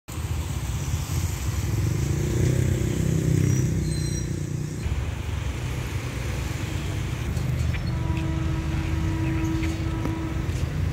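A low, steady engine rumble, a little louder between two and four seconds in.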